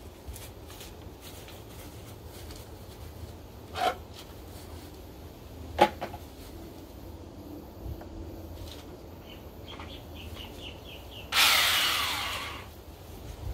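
Ozito pole trimmer's motor triggered in a short burst about eleven seconds in, then winding down with a falling whine. Before it come a couple of knocks and a short run of light ticks as the tool is handled.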